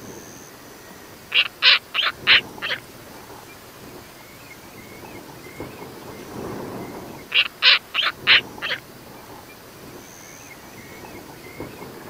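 An owl calling: a quick series of five short, sharp, high calls about a second and a half in, and the same five-call series again about six seconds later.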